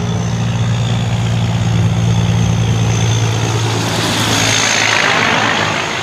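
Diesel semi truck engine running with a steady low drone as the truck drives by. Tyre and road noise swells about four to five seconds in as it passes close, and the engine drone fades after that.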